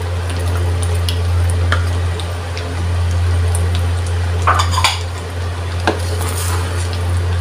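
Diced potatoes tipped from a bowl into a wok of thick tomato stew, with clinks and scrapes of the bowl and wooden spatula against the metal pan, a cluster of clinks a little past halfway. A steady low hum runs underneath.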